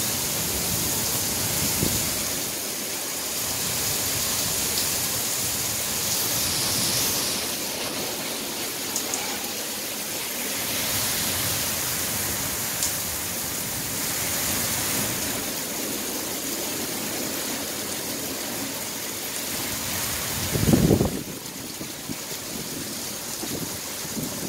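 Heavy thunderstorm downpour: rain falling in a steady, dense hiss. Near the end comes one brief loud low thump.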